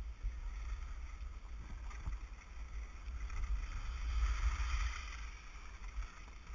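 Wind buffeting the microphone of a moving action camera as a low rumble, with the hiss of skis or a snowboard sliding over packed snow, which grows louder about four seconds in.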